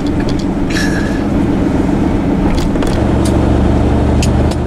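Vehicle engine running steadily, its low note getting deeper and louder from about three seconds in, with occasional light clicks and rattles over it.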